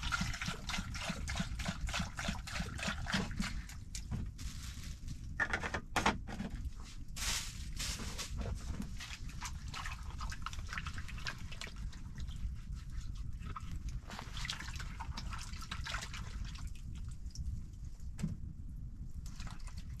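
Water pouring from a plastic jerry can into a bowl for the first few seconds, then scattered splashing and sloshing as tomatoes and vegetables are washed by hand in it, over a steady low rumble.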